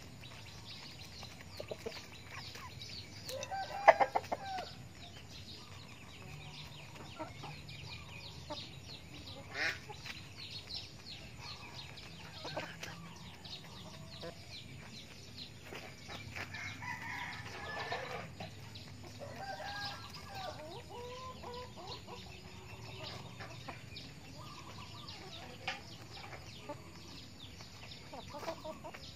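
Backyard chickens clucking as they feed, with one loud sharp call about four seconds in. A rooster gives a drawn-out crow around the middle.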